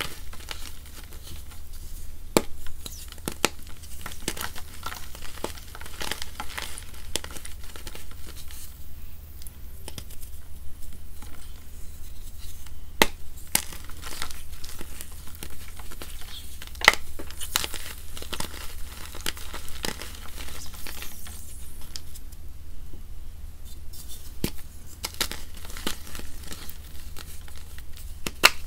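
Wet gym chalk dusted with charcoal powder being crumbled and squeezed by hand in a bowl of water: a steady run of soft crunching and crackling, with a few sharper snaps.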